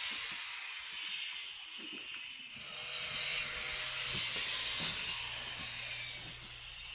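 A power tool running with a steady high hiss, easing off briefly about two and a half seconds in.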